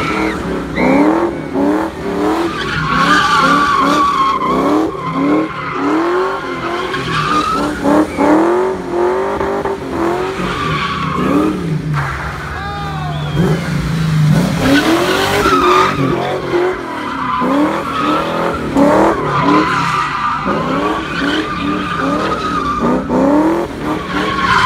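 Car doing donuts: tyres squealing without a break while the engine revs up and down over and over, about once a second.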